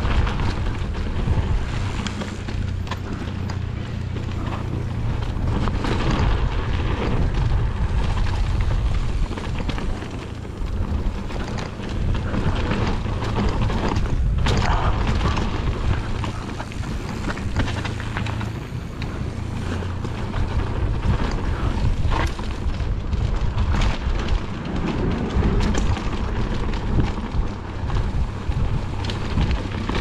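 Wind buffeting the microphone over the tyres of a mountain bike rolling fast down a rocky dirt trail, with frequent clunks and rattles from the bike over bumps and rocks.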